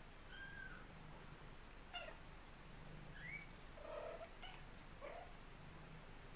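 A mother cat making a series of about six short, faint chirping trill calls, some rising in pitch, an unusual call like the chattering 'mrrr-mrrr-mrr' a cat makes at birds but not quite; the owner guesses she is calling her kittens to come to her.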